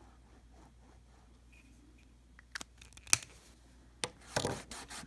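Faint scratching of a water-soluble art crayon drawn over textured canvas, with a few sharp clicks about two and a half to four seconds in, the loudest near three seconds. Near the end a fingertip starts rubbing the crayon into the canvas.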